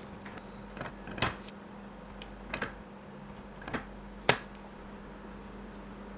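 A 5 mm pricking iron in a hand press punching stitching holes through leather onto an acrylic plate: several sharp clicks at irregular intervals, the loudest about four seconds in, over a faint steady hum.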